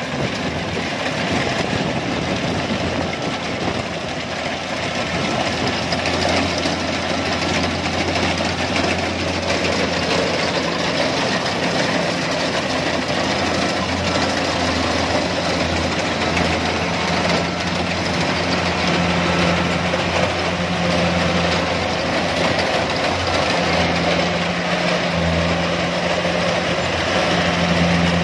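Kubota rice combine harvester running steadily as it cuts rice, its engine drone mixed with the noise of the cutting and threshing gear. A low hum grows stronger about a third of the way in.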